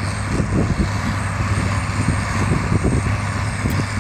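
International Harvester 1026 tractor's turbo diesel engine running steadily under load while pulling a hay baler through the field.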